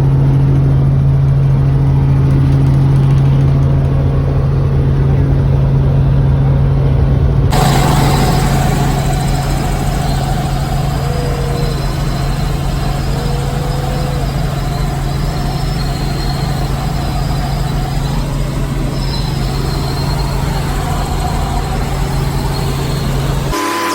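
Helicopter engine and rotor noise heard from inside the cabin in flight: a loud, steady drone with a constant low hum. The higher part of the noise changes abruptly about seven seconds in.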